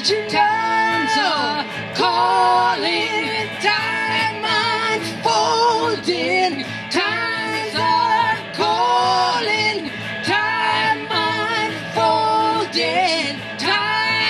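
Live band playing a pop-rock song, with voices singing long, bending phrases over a steady drum beat.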